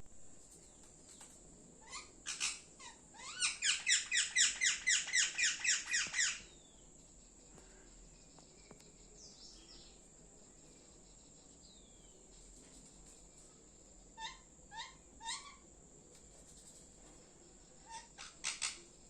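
Parrot chirping: a fast run of about fifteen short rising chirps over some three seconds, with scattered groups of shorter chirps before and after. A faint steady high-pitched tone sits underneath throughout.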